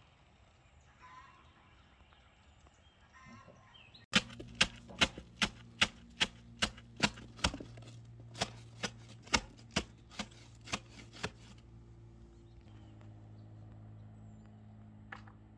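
Hammer blows: about sixteen sharp strikes at two or three a second, with a short pause partway, over a steady low hum. Faint bird chirps come before the hammering starts.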